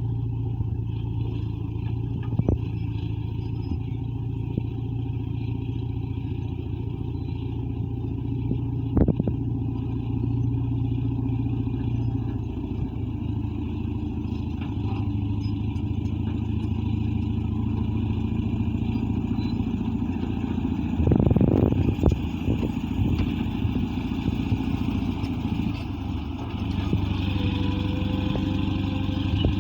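Caterpillar D8 bulldozer's diesel engine running steadily under work, with a few sharp knocks and a louder burst of clattering about two-thirds of the way through.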